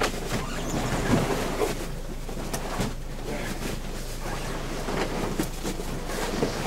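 A tow vehicle pulling a snowmobile trailer out from under the sleds: a steady noise with scattered knocks and clatters.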